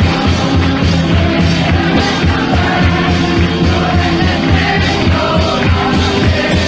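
Music with singing over a steady, evenly repeating beat.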